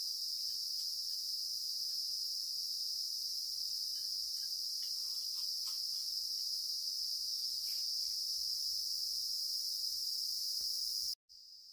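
Steady, high-pitched drone of a chorus of insects. Near the end it cuts out for a moment and comes back fainter.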